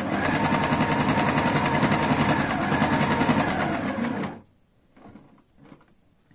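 Frister and Rossmann Cub 4 sewing machine running at a steady speed, with a rapid even chatter of needle strokes. It stops suddenly about four seconds in, followed by a few faint clicks as the fabric is handled.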